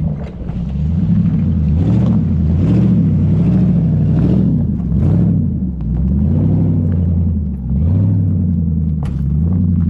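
Pickup truck engine pulling in low gear, its pitch rising and falling every second or so as the throttle is worked over rough, rocky ground, with the truck and its enclosed trailer passing close by. A few knocks near the end.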